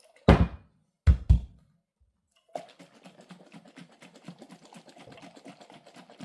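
A lidded glass mason jar of cucumbers in dill pickle brine with peppercorns being shaken by hand: three heavy thunks in the first second and a half, then a steady rattle and slosh of the brine and spices inside.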